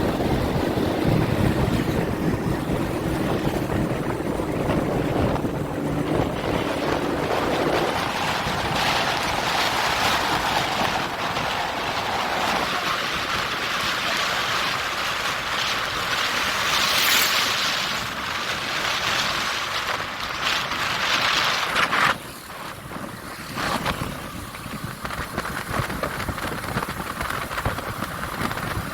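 Engines running at a road-repair site, with wind noise on the microphone. The sound changes abruptly a few times, dropping in level about two-thirds of the way through.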